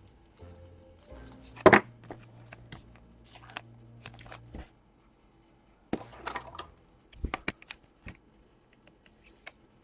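Faint background music that cuts out about halfway, with scattered sharp clicks and light rustles of trading cards and plastic card sleeves being handled.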